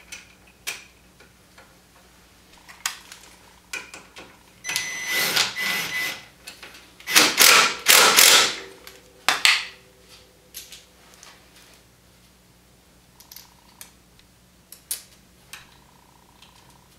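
Hand tools and metal suspension parts clicking and clanking during reassembly of a side-by-side's front suspension, with a louder rattling stretch about seven to nine seconds in.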